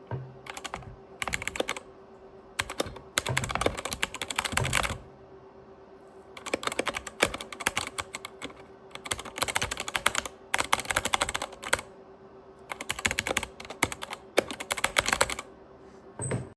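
Typing on a budget mini mechanical keyboard: fast runs of key clicks in bursts of one to two seconds, with short pauses between them. A faint steady hum runs underneath.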